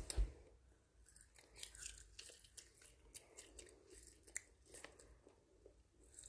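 Faint, irregular crunching and chewing of a crunchy snack food, with a sharper bite or crunch right at the start.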